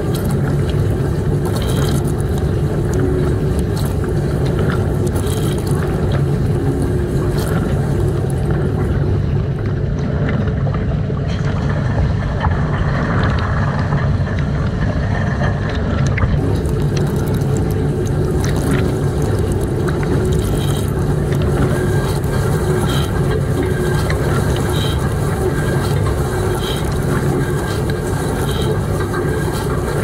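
Commercial dishwasher running: a loud, steady machine hum from its pump and motor, with water spraying and splashing inside the wash tunnel.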